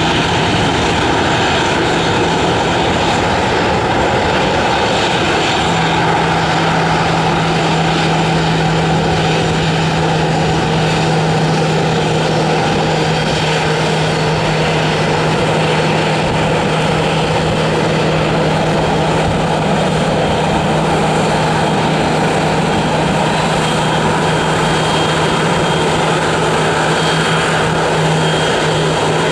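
Twin CFM56-7 turbofan engines of a Boeing 737-700 business jet running at taxi power: a steady, even jet noise. A steady low hum joins in a few seconds in and holds.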